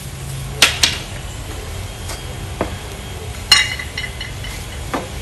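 Sharp knocks and clinks from handling a broom among clay garden pots: two loud ones about two thirds of a second in, a ringing clink about three and a half seconds in, and a few softer knocks, over a steady low rumble.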